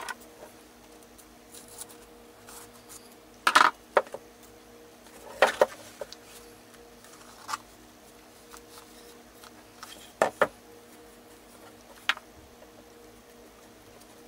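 Scattered short knocks and taps as a stretched canvas and a paintbrush are handled and set against a cardboard-covered work surface, about seven in all, some in quick pairs. A faint steady hum runs underneath.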